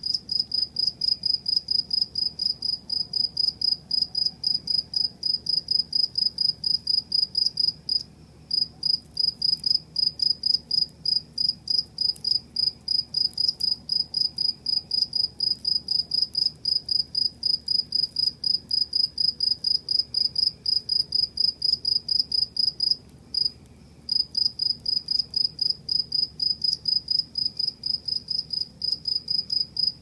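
A cricket chirping at night: a steady run of evenly spaced high chirps, several a second, pausing briefly twice.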